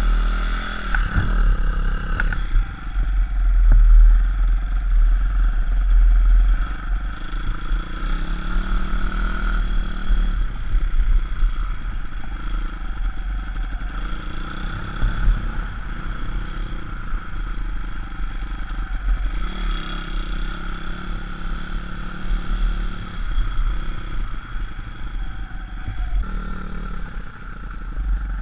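Small single-cylinder pit bike engine running while riding over rough grass, its note rising and falling with the throttle, under heavy wind rumble on the helmet-mounted microphone.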